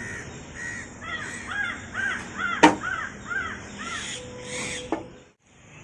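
Birds calling in a quick run of repeated arched calls, with a single sharp knock a little before halfway. The sound drops out briefly near the end.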